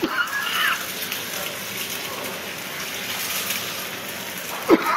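Eggs and vegetables sizzling on a hot teppanyaki griddle: a steady frying hiss.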